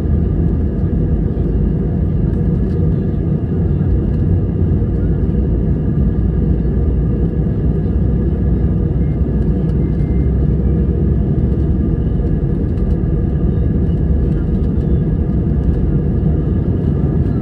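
Airbus A320 cabin noise beside the wing during the takeoff roll: the jet engines running steadily at high thrust over a heavy low rumble from the runway.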